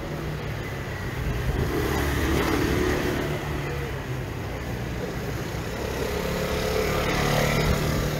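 City street traffic: cars passing with a steady engine rumble, swelling twice, about two seconds in and again near the end.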